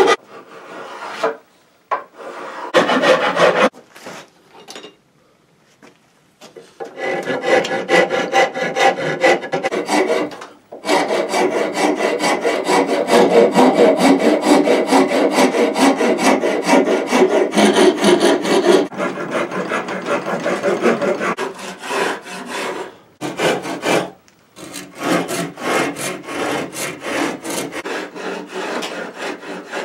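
Steel hand file rasping along a walnut gun stock in quick, repeated strokes. The filing pauses briefly a few times, with a longer break of about three seconds a few seconds in, and otherwise keeps a steady stroking rhythm.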